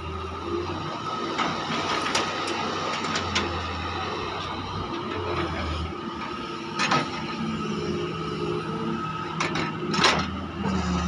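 Doosan DX140 wheeled excavator's diesel engine running under digging load, with a steady whine over the engine hum. Two sharp knocks as the bucket works in the trench, one about seven seconds in and a louder one near the end.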